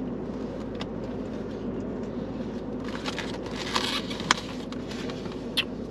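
Light clicks of a plastic fork against a takeout container and a brief rustle of the container about four seconds in, over the steady hum of a car cabin.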